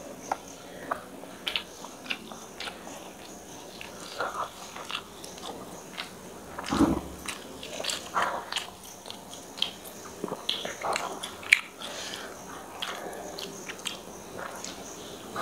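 Close-miked eating sounds: chewing and wet mouth smacks and clicks as chicken korma and tandoori roti are eaten by hand, with one louder, fuller mouth or hand noise about seven seconds in.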